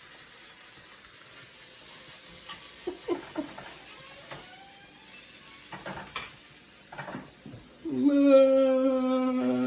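Food sizzling in hot oil in a frying pan, with a few light clicks and scrapes of a utensil stirring it. About eight seconds in, a loud, long pitched note starts and holds steady past the end.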